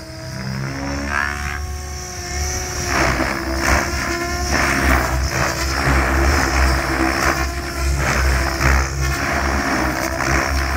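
Tron 7.0 electric RC helicopter flying 3D aerobatics: a motor and rotor whine that slides up and down in pitch, then from about three seconds in rough rotor whooshes that swell and fade in quick pulses as it flips and turns.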